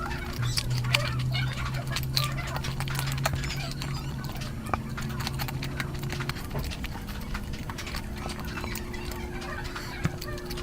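Close-miked chewing and wet mouth smacking of someone eating curry, a quick run of clicks and smacks. A steady low hum sits underneath for the first two-thirds.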